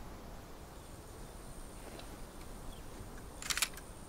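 Quiet rural outdoor ambience: a faint, high, steady insect drone, and a brief cluster of sharp clicks about three and a half seconds in.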